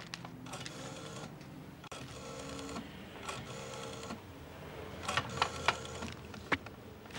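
A small machine whirring in four short runs of under a second each, separated by brief pauses, with a few sharp clicks in the later part.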